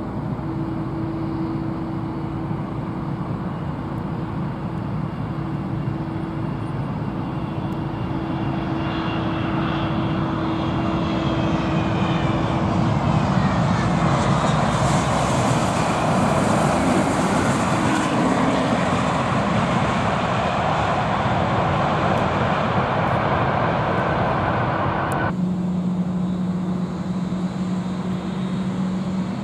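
Airliner engines passing close by. The noise swells to a peak in the middle, with whining tones that fall in pitch as the plane goes past, then eases off. About 25 seconds in it cuts abruptly to another aircraft's steady, lower engine hum.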